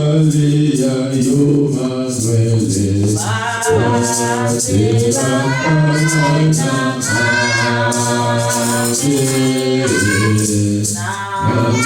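Group of voices singing together unaccompanied, a choir-like a cappella hymn.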